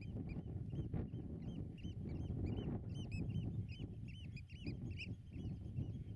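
Many birds calling at once: short, fluting notes that rise and fall, several a second and overlapping, over a low wind rumble on the microphone.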